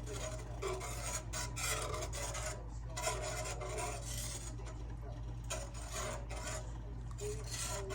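Repeated scraping strokes of a cooking utensil against a pan, over a steady low hum.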